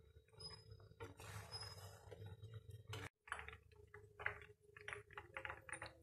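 Faint stirring of herbs in a wide pan of simmering coconut oil with a slotted steel spatula. After a sudden break about halfway, a quick irregular run of small clicks and crackles comes from the oil simmering with the herbs.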